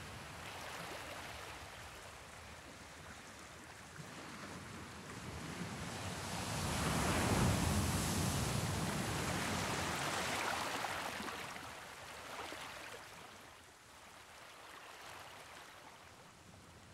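Rushing noise of sea waves, swelling to its loudest about seven to eleven seconds in and then fading away.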